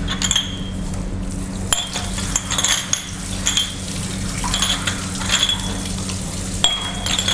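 Glass culture jars clinking against each other several times at irregular intervals, each clink ringing briefly, over a steady low hum.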